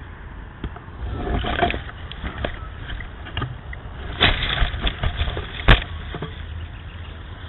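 Scraping rustles and knocks of a tricopter's frame jostling against tree branches, in two bouts, then a single sharp click, over a steady low rumble.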